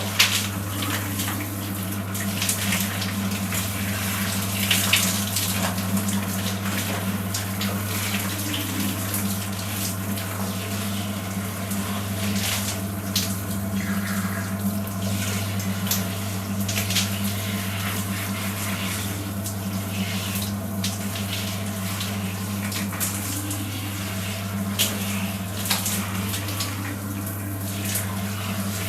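Water running and splashing in a bathroom, with irregular spatters over a steady rush and a steady low hum underneath.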